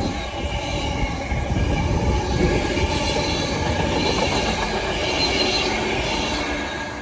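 A train running past on the rails, a steady rumble with a thin high wheel squeal over it, loudest in the middle and fading near the end.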